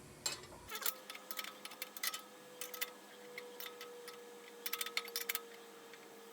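Socket ratchet wrench clicking in short runs of quick ticks, the heaviest run about five seconds in, while the mini bike's rear axle bolt is worked loose to remove the wheel.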